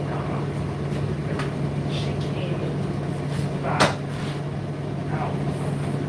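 Indesit IDC8T3 condenser tumble dryer running: a steady motor hum under the rush of the tumbling drum, with one sharp knock a little before four seconds in.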